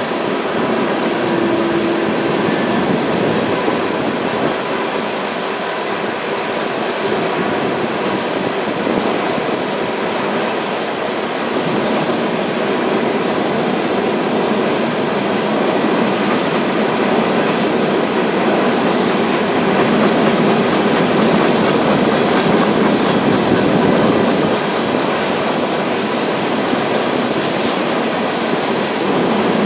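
Coal hopper cars of a freight train rolling past on curving track: a steady, continuous noise of steel wheels running on rail, with wheel clicks over the joints.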